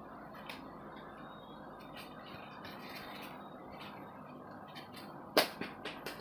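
A worn foam nail buffer block being handled: faint light taps over a steady low hiss, then a sharp click about five seconds in followed by a few smaller clicks as the block is set aside.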